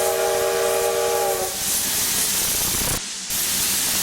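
Steam locomotive C62 2's whistle sounding a steady chord that cuts off about a second and a half in, followed by a steady hiss of escaping steam.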